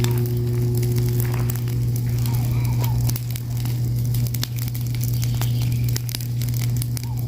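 Fire crackling, with frequent sharp pops and snaps, over a steady low hum.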